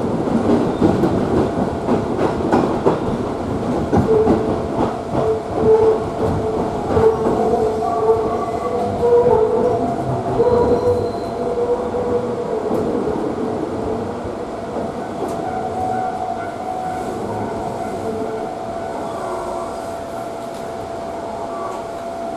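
JR Tsurumi Line electric train running on the rails, its wheels clacking over rail joints with steady squealing tones from the wheels. The sound slowly quietens as the train slows on arrival at a station.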